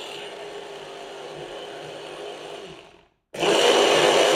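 Black+Decker 4-in-1 sports blender's motor running on large guava chunks with a little water and ice, which it fails to blend. It runs at a lower, steady level for about three seconds, stops for a moment, then runs loud again.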